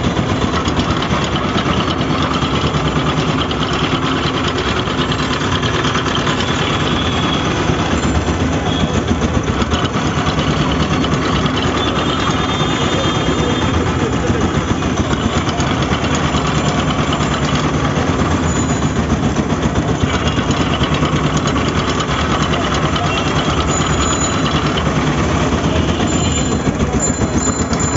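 Motor-driven sugarcane juicer running steadily, its steel rollers and gears crushing cane stalks fed through by hand, with a fast, even mechanical rattle.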